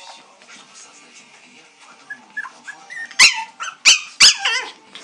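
Yorkshire terrier puppies yipping and whimpering in rough play: faint squeaks at first, then about three seconds in a run of loud, sharp, high-pitched yelps that drop in pitch.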